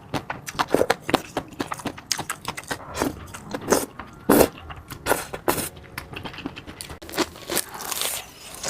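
Close-miked eating sounds: biting and chewing food in a quick, irregular run of wet clicks.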